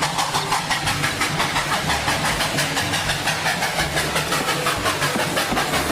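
Steam locomotive sound: rapid, even hissing chuffs, about ten a second.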